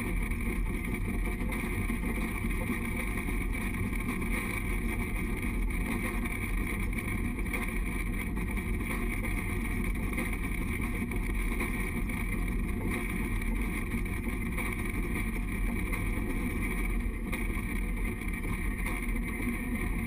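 Narrow-gauge train running along the track, a steady, even rumble from the locomotive and its wheels, heard through a camera mounted on the front of the locomotive.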